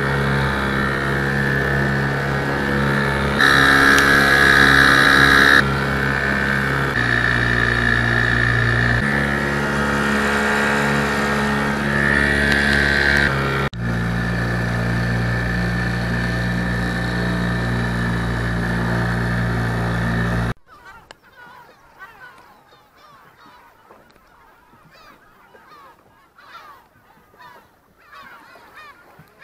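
Small boat outboard motor running steadily under way. Its pitch and level shift in a few sudden steps, and it cuts off suddenly about two-thirds of the way through. After that, a flock of gulls gives many short calls overhead.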